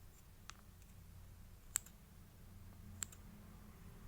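Small scissors snipping soft clay, three sharp clicks about a second and a quarter apart.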